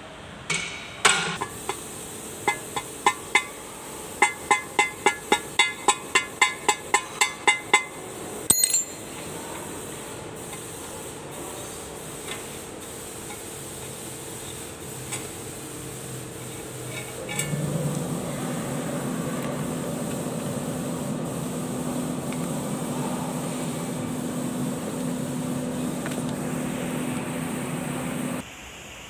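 A hammer striking metal in a run of about fifteen sharp, ringing blows, roughly two a second. Later a steady low hum starts suddenly about midway and cuts off near the end.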